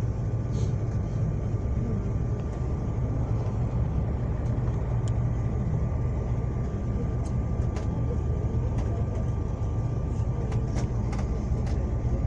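Steady engine and road rumble heard from inside a moving vehicle, with a thin constant whine and a few light rattles and clicks.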